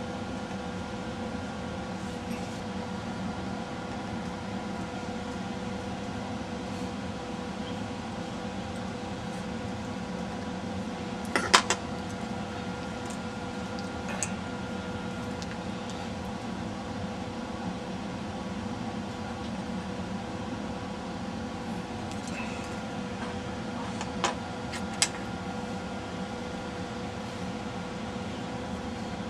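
A steady hum with several constant tones, broken by a few sharp light clicks of small metal objects: a short cluster about twelve seconds in and two more around twenty-four seconds.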